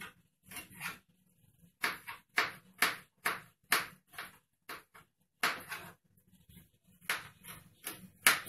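Kitchen knife chopping fresh ginger on a plastic cutting board: a run of sharp taps about two a second, paused briefly twice.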